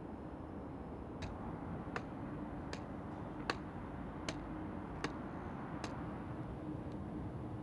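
A white cane's tip tapping on stone paving slabs, a sharp tick about every three-quarters of a second, over a steady low background hum.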